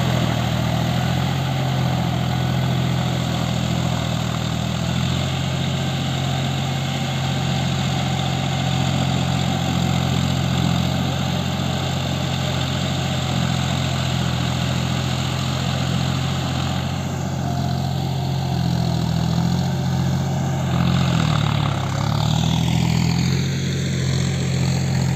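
John Deere tractor's diesel engine running steadily under load while it drags a rotary tiller through deep, waterlogged mud. Its note wavers a little in the last several seconds.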